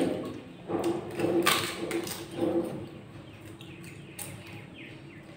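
A person eating by hand close to the microphone: a few short mouth and crunching noises in the first half, then quieter chewing.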